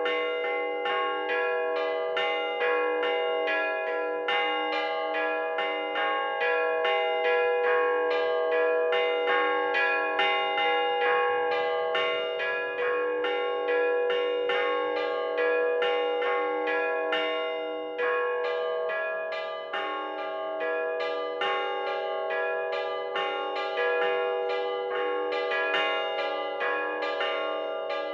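Orthodox church bell peal (zvon) on the middle-sized podzvonnye bells: quick, steady strokes in a repeating rhythm, the bells' tones ringing on and overlapping one another. The pattern eases briefly about two-thirds of the way through, then picks up again.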